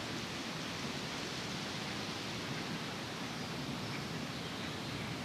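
Steady, even hiss of outdoor background noise, with a few faint ticks.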